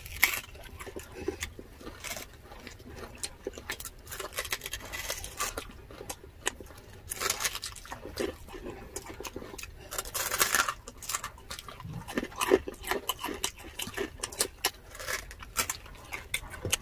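Close-up eating sounds of people chewing crispy pata, deep-fried pork knuckle, off the bone by hand: wet chewing, lip smacks and mouth clicks, with a few louder, noisier bites about seven and ten seconds in.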